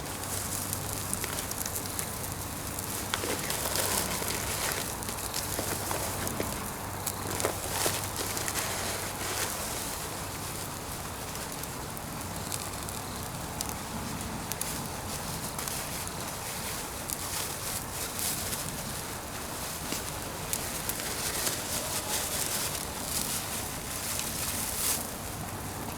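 Pine firewood fire crackling: irregular sharp pops and snaps over a steady hiss.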